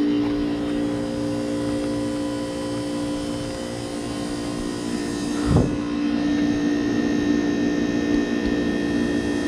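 2001 Heil Performance 10 heat pump outdoor unit running through a defrost cycle: a steady hum with a strong low tone. A brief thump about five and a half seconds in.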